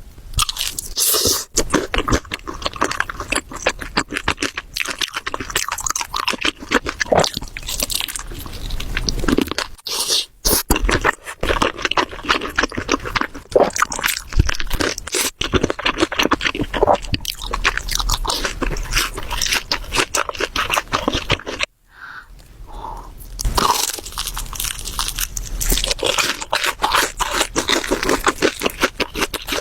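A person eating crunchy food close to the microphone, mukbang style: a steady run of crackly bites and chewing crunches, with a brief pause about three-quarters of the way through.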